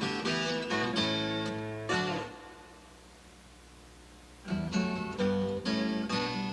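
Strummed acoustic guitar music. It fades out about two seconds in, leaving a quiet gap of about two seconds, then the guitar music starts again abruptly.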